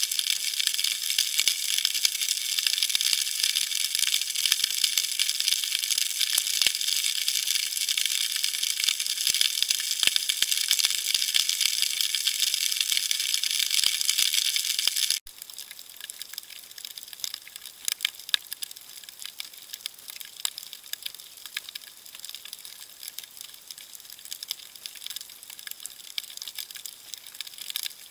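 Underwater shoreline sound: a dense crackle of sharp clicks over a rushing hiss of water. About halfway through it cuts abruptly to a quieter stretch of the same crackling.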